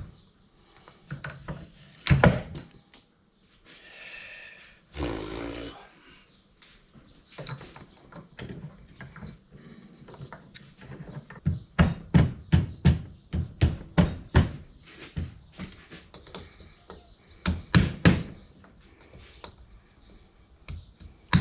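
Sharp knocks of a hammer tapping metal, driving the bearing caps of a Jeep TJ U-joint into the yoke, with a brisk run of strikes about halfway through and a few more near the end. There are also a couple of short scraping sounds early on.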